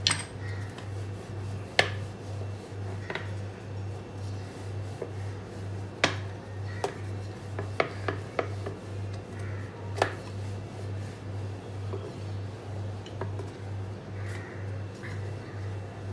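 Metal rolling pin rolling out naan dough on a metal plate: quiet rubbing broken by scattered sharp clicks and taps of metal on metal, the loudest near the start and about two, six and ten seconds in.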